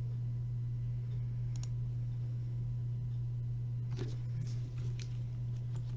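A few faint clicks from trading cards and plastic card holders being handled, over a steady low electrical hum.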